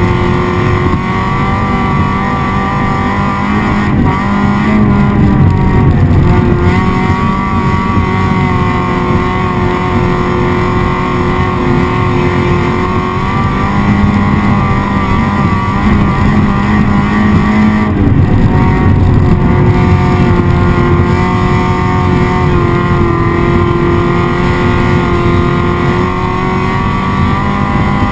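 Race car engine heard from inside the cabin, running hard through an ice-track heat race, its pitch dropping and climbing again several times as the car lifts off and accelerates, most sharply about four seconds in and around eighteen seconds.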